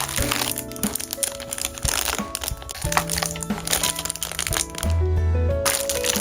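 Packaging being unwrapped, with repeated crinkling and crackling over background music that has a gentle melody. The crackles ease off briefly about five seconds in, then resume.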